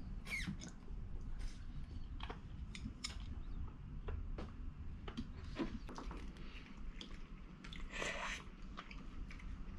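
Close eating sounds: chopsticks clicking against ceramic bowls and plates in scattered short taps, with chewing.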